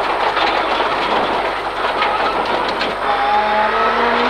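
Rally car at full speed on a special stage: a loud, steady rush of engine, tyre and road noise. The engine note rises near the end as the car accelerates.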